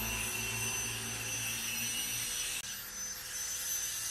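Steady machine hum with a thin high whine over it; the low part of the hum fades about two seconds in.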